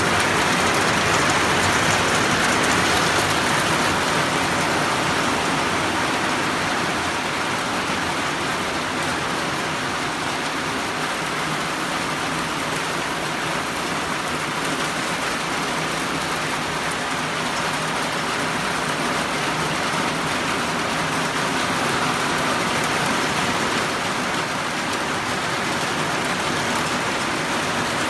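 Steady rain falling, an even hiss that is a little louder in the first few seconds.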